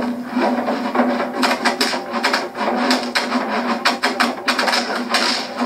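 Fight sound effects from a stick-figure fight animation: a fast, uneven run of punch and kick hits over a steady low tone.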